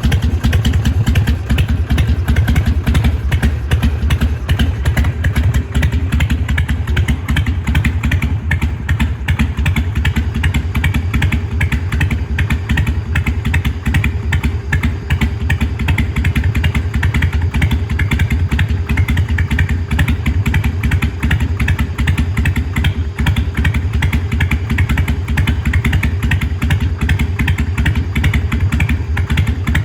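Harley-Davidson Sportster 883R's air-cooled 45-degree V-twin idling steadily with its uneven "potato" lope, running on a freshly rebuilt carburettor. A faint steady hum joins about ten seconds in.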